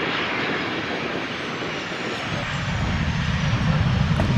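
Jet airliner passing, its engines giving a steady rushing roar with a faint high whine that slowly falls in pitch. A deep rumble builds up in the second half.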